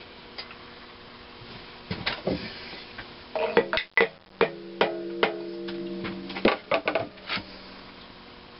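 Irregular metal clinks and knocks from the connecting rod, bolts and shims being worked inside a cast-iron engine crankcase, with a brief metallic ringing tone in the middle. A shirt sleeve rustles against the microphone about four seconds in.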